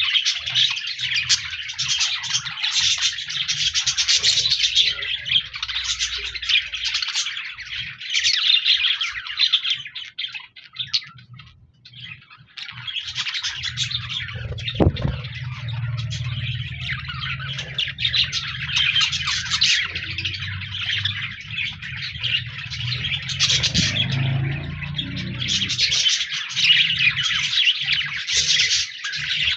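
A flock of budgerigars chirping and warbling busily, thinning out briefly about ten seconds in before picking up again. A low steady hum sits underneath through the middle stretch.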